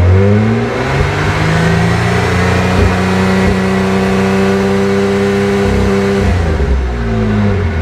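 Holden Commodore VN's 3.8-litre V6 engine being revved: the pitch climbs over the first second or so, holds steady at high revs for about four seconds, then drops back. The engine is running on a newly fitted Stage 3 performance chip.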